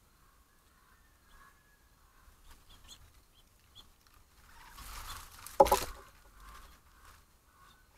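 A sudden rush of noise as the birds and squirrels scatter, about four and a half seconds in, peaking in a single loud, harsh squawk of a startled Steller's jay. Faint bird chirps come before it.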